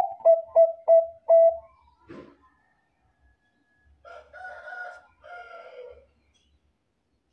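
Thai-bred (bangkok) zebra dove singing: a quick run of five short, clipped coos, then a brief knock, then two softer, longer coos near the end.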